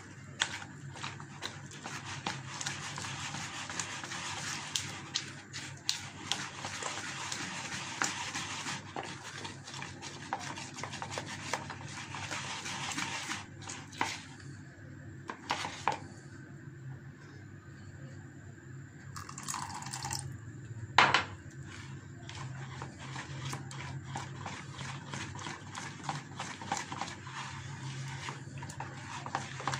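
Wet gram-flour (besan) batter being stirred by hand in a plastic bowl: a continuous wet stirring sound with many small clicks. It is busier in the first half and sparser later, with one sharp knock about two-thirds of the way in. A low steady hum runs underneath.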